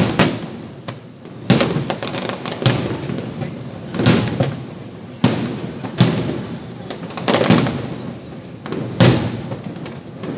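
Fireworks bursting overhead: a run of sharp bangs, roughly one every second or so, each dying away in a rumbling echo, with small crackles between some of them.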